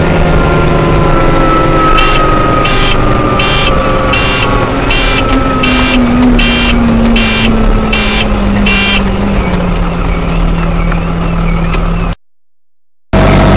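Fiatagri 100-90 tractor's diesel engine heard from the cab while driving, its pitch falling as the tractor slows. Over it, a repeated beeping about twice a second for several seconds. The sound cuts out briefly near the end.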